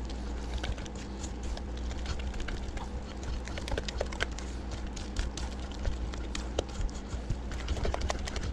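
Spoon stirring thick batter in a bowl, an irregular run of light clicks and taps, over a steady low hum.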